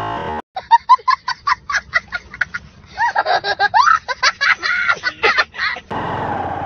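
Laughter in quick, rapid bursts rising into higher, gliding cackles; it cuts in and stops suddenly, like a comic laugh clip.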